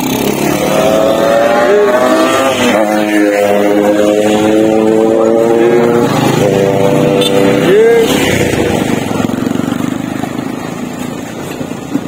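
Several motorcycle engines running close by at low speed as the bikes ride up and pull in, a steady hum whose pitch drifts slowly. It fades after about eight seconds.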